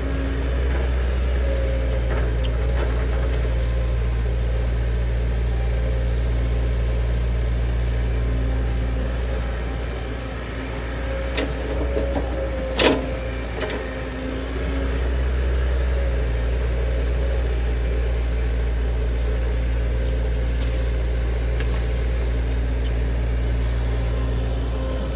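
Heavy-equipment diesel engine running steadily, its low drone easing off for a few seconds in the middle before picking up again. A single sharp knock about halfway through.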